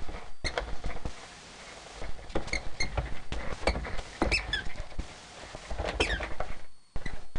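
A dog rummaging in a Christmas stocking of toys: irregular rustling and sharp clicks, with a few short high squeaks that bend in pitch.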